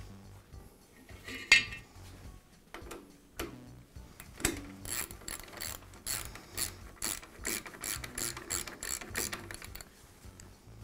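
Jet drill press quill coil return spring housing clicking as it is wound by hand to add spring tension. There is one sharp click, then after a pause a run of clicks at about two or three a second.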